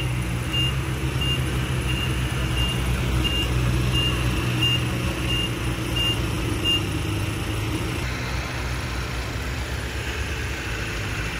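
Heavy construction vehicle's diesel engine running steadily while its reversing alarm beeps about every two-thirds of a second; the beeping stops about seven seconds in and the engine runs on.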